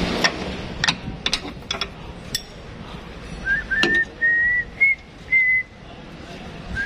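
A person whistling a few short, high, steady notes that step slightly upward, in the second half. Several sharp clinks and knocks come before it.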